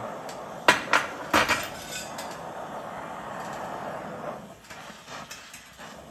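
Three sharp metallic clanks of a hammer on steel in the first second and a half, over the steady hiss of an oxy-acetylene cutting torch flame heating steel bar stock for bending. The hiss drops off a little near the end.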